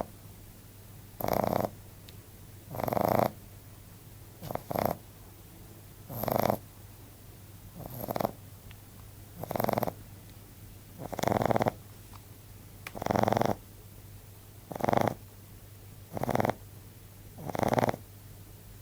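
A 14-week-old Frenchbo puppy (French bulldog–Boston terrier cross) snoring loudly in its sleep. Each breath makes a rasping snore of about half a second, roughly one every one and a half to two seconds, and now and then two come close together.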